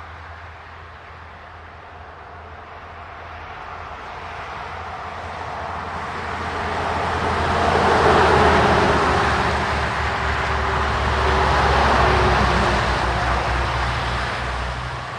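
Vehicles passing on an asphalt road: tyre and engine noise swells up, peaks about eight seconds in and again about twelve seconds in, then fades away, over a low steady hum.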